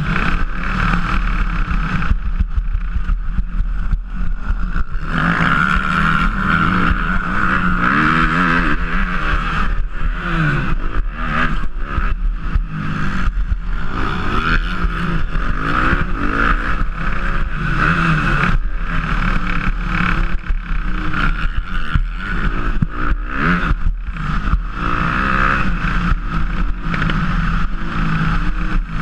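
Suzuki motocross bike engine revving hard, its pitch climbing and dropping again and again as the rider accelerates, shifts and brakes around the track, with rattling and wind on the bike-mounted camera.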